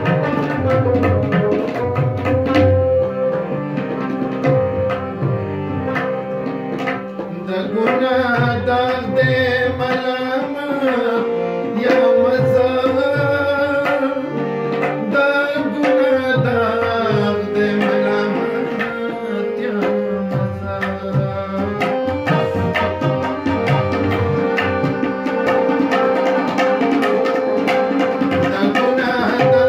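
Live Pashto ghazal: harmonium holding a steady drone note under a man's singing, with tabla playing a running rhythm of drum strokes.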